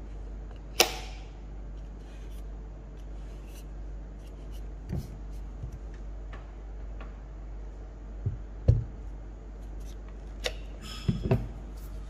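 A sharp plastic click about a second in as a magnetic nozzle snaps onto the hair dryer's barrel, then a few dull knocks of the dryer and its attachment being handled, the loudest about nine seconds in. The dryer itself is not running.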